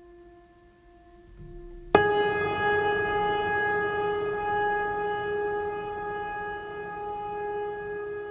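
Background music of long held tones: a quiet drone, then a new, louder sustained chord starts suddenly about two seconds in and rings on, slowly fading.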